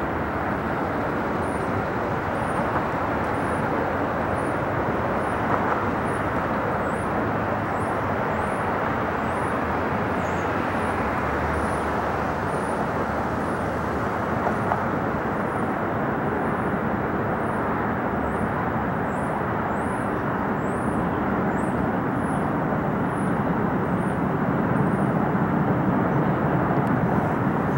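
Boeing 777 twin-jet engines on landing approach with gear down, heard from the ground as a steady rumbling roar. The roar grows deeper and slightly louder in the last few seconds.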